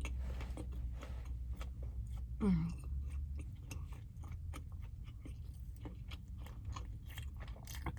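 Close-up chewing of food, with many small wet mouth clicks and smacks, and a short hum falling in pitch about two and a half seconds in.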